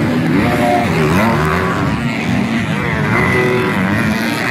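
Several 250cc four-stroke motocross bike engines revving up and down together, their pitches overlapping as the riders open and close the throttle.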